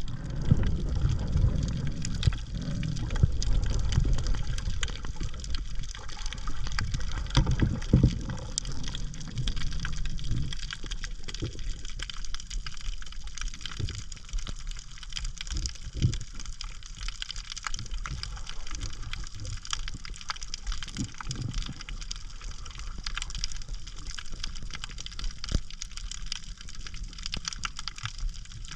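Water sound with many fine crackling clicks, stronger low churning water for the first ten seconds or so that then settles.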